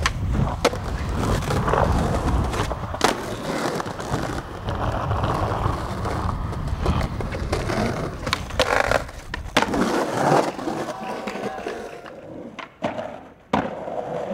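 Skateboard wheels rolling over stone paving, with a run of sharp clacks from the board popping, hitting and landing. The rolling rumble drops away about ten seconds in, leaving a few isolated knocks.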